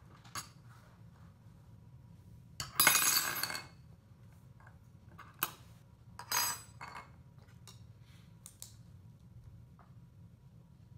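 A spoon and small test objects clinking and clattering on a tabletop. The loudest clatter comes about three seconds in and lasts about a second, a shorter one follows just after six seconds, and there are light taps between.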